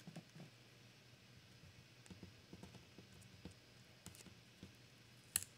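Near silence with faint paper handling as masking-paper leaf masks are peeled off cardstock: scattered light ticks and one sharper click near the end.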